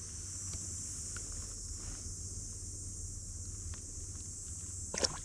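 Steady high-pitched insect chorus over a low rumble, with a few faint ticks and a brief louder rustle about five seconds in.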